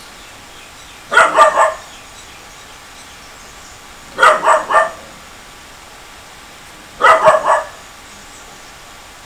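A dog barking in quick runs of three or four barks, three runs about three seconds apart.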